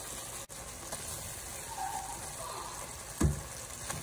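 Broad bean and potato curry simmering in a pot, a steady low sizzle, with one dull thump a little after three seconds in.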